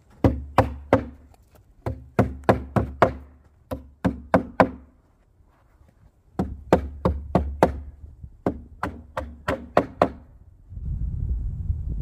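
Hammer striking nails into wooden planks at the corner of a plank frame, in quick runs of blows with short pauses between. About 11 s in it gives way to wind rumbling on the microphone.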